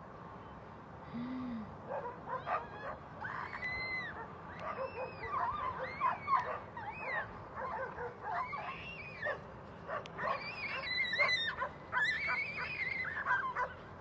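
A pack of stray dogs barking and yelping, with many short calls overlapping, growing louder over the last few seconds.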